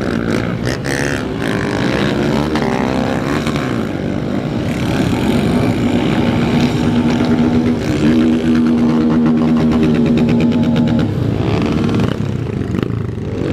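Motorcycle engines running and revving, the pitch rising and falling in the first few seconds; one engine then holds a steady note for about six seconds before dropping away.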